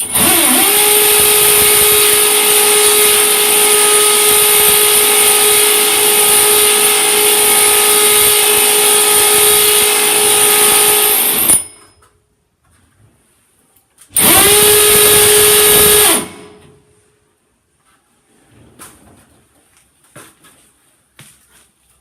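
Electric drill spinning up and running steadily at a high pitch for about eleven seconds, stopping, then running again for about two seconds; a few faint knocks follow.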